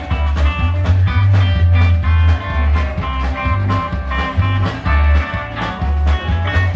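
Background music with a steady beat: a guitar-led, bluesy rock track with a strong bass line.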